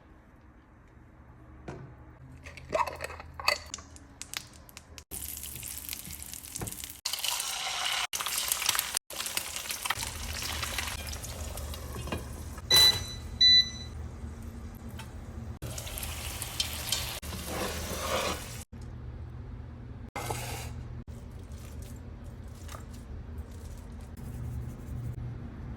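Home cooking sounds: utensils clattering and scraping on pots and pans, stirring, and food sizzling in a pan over a steady low hum. Two short electronic appliance beeps sound about halfway through.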